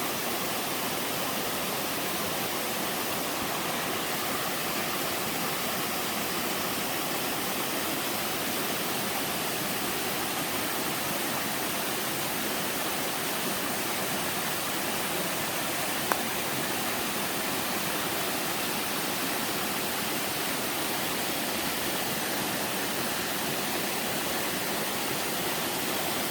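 Steady rushing of water down a five-tier sliding waterfall in a mountain stream, with one brief click a little past the middle.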